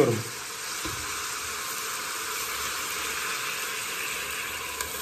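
Lamb neck pieces sizzling steadily in hot olive oil in a steel pot, searing with garlic, peppercorns and a bay leaf.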